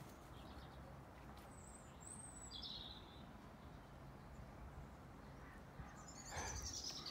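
Quiet outdoor garden ambience, with a couple of short, high bird chirps about two seconds in and a brief rustling noise near the end.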